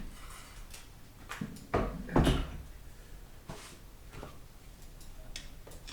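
A few knocks and clicks of hard parts being handled on a workbench. The heaviest is a pair of clunks about two seconds in, followed by lighter clicks.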